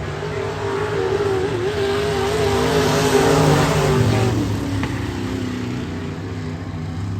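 Race car engine running at speed, growing louder and then fading, with its pitch dropping about four seconds in as it goes by.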